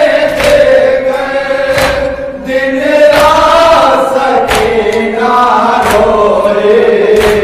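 Men chanting an Urdu nauha, a Shia lament, in slow unison through a microphone, the held notes gliding gently. Sharp slaps come about once a second, typical of matam, hands beaten on the chest in time with the lament.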